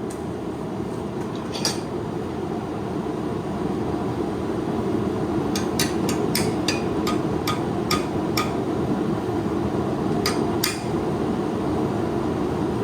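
Hammer tapping a forged 8670 high-carbon steel knife blade on an anvil, light strikes as the blade is straightened. There is a single strike about two seconds in, a quick run of about nine taps in the middle, and two more near the end, all over a steady rushing roar.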